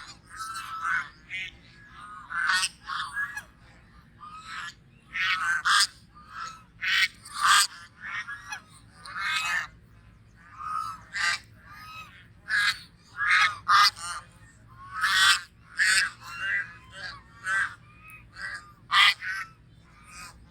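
Geese honking: a long run of short, nasal honks coming in irregular clusters of two or three, with some calls overlapping.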